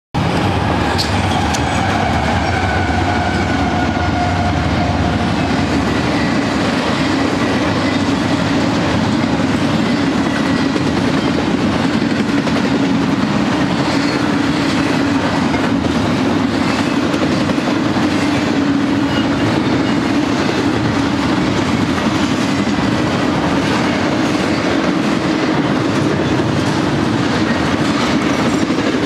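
Double-stack intermodal freight train's container cars rolling past close by: a steady, loud rumble and clatter of steel wheels on rail.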